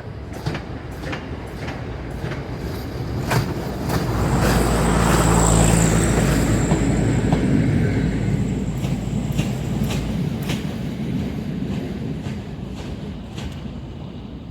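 A freight train passing close by, its wheels clacking over rail joints. The sound swells to its loudest about five seconds in, with a low hum and a thin high whine as the locomotive goes past, then the wagons roll by and slowly fade.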